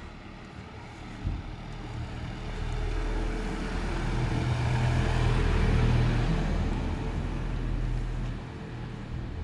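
A car driving slowly past at close range: a low engine hum with tyre noise builds for several seconds, is loudest around the middle and fades away near the end. A short knock about a second in.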